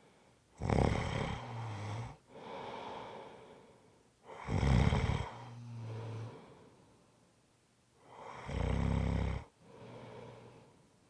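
A person snoring in a slow, regular rhythm: three loud snores about four seconds apart, each followed by a softer breath.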